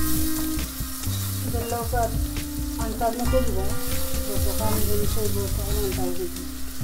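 Food sizzling as it fries in hot oil in a pan, stirred now and then. Over it, a pitched melody with gliding notes comes and goes.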